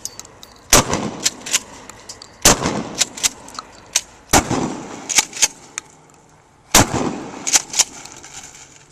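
12-gauge pump-action shotgun fired four times, about two seconds apart, each shot echoing away and followed by the two-part clack of the pump being racked to chamber the next shell.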